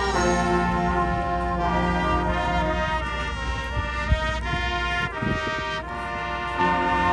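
High school marching band playing, its brass section holding full chords that change every second or so, with a sharp percussion hit about four seconds in.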